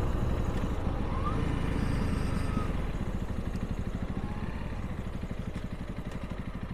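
Honda CRF300L's single-cylinder engine running as the bike slows for a bend, with wind noise over it. In the second half the engine's separate beats become distinct as the revs drop and the sound eases off.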